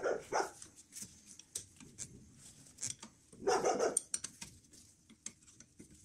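A dog barking: a couple of short barks at the start and a longer bout about three and a half seconds in, over scattered light clicks of a hand tool working on the brake caliper.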